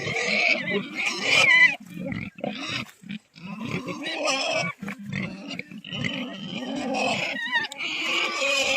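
Pigs grunting and squealing, several calls overlapping without a break, with low grunts under higher-pitched squeals.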